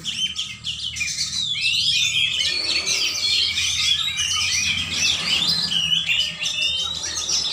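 Several caged songbirds singing and chirping at once in a dense, overlapping chorus of quick high warbles and calls.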